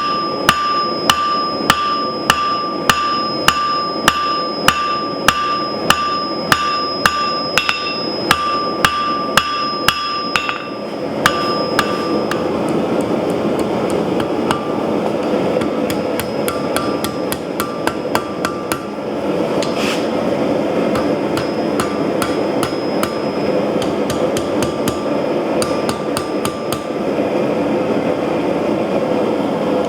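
Hammer blows on steel at the anvil, about two a second, each leaving a high ringing tone. About ten seconds in the regular blows give way to quicker, lighter, uneven taps over a steady rushing noise.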